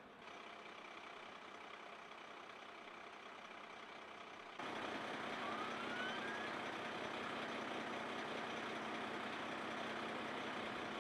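Parked emergency vehicles' engines running, a steady outdoor vehicle background. About four and a half seconds in it steps up louder with a steady hum, and a brief rising tone sounds soon after.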